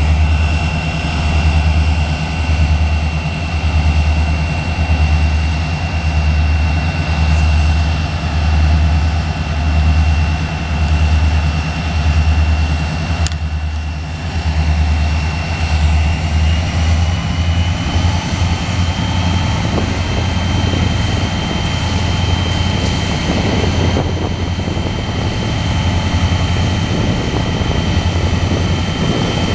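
Diesel locomotives of an eastbound coal train, led by Wheeling & Lake Erie 106, running as the train starts to move: a deep engine drone that swells and fades about once a second, then evens out a little past halfway, with a steady high whine that steps up slightly at about the same time.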